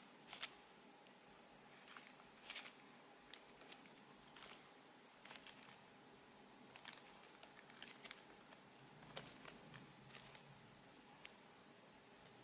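Faint, irregular crinkles and rustles of plastic blind-bag packaging being handled, a dozen or so brief crackles spread across the stretch.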